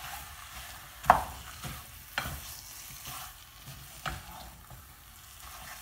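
Wooden spatula stirring masala-coated chicken pieces in a nonstick pot while they sizzle in the oil, the spatula knocking against the pot three times, loudest about a second in.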